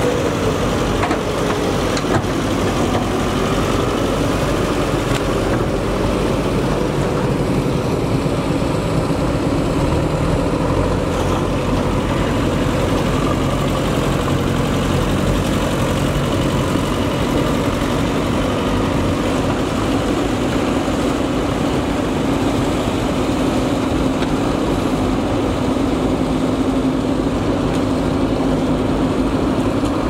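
JCB 3DX backhoe loader's diesel engine running steadily as the machine digs and carries wet mud.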